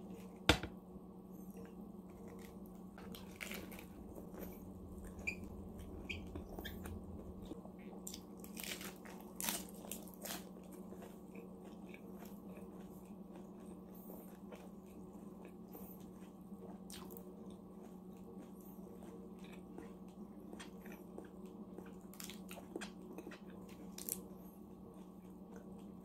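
Close-miked eating and food handling: crunching and chewing, with crisp iceberg lettuce leaves crackling and a fork clicking, over a steady low hum. A single sharp click about half a second in is the loudest sound.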